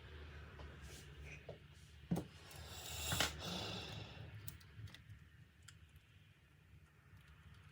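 Small clicks and handling noises from working on a laptop, with one sharp knock about two seconds in and a short rushing swell about a second later.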